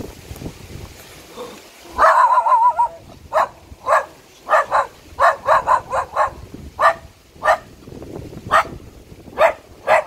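Indonesian village dog (anjing kampung) barking: a wavering yelping cry about two seconds in, then a long run of short, high-pitched barks, several a second at times.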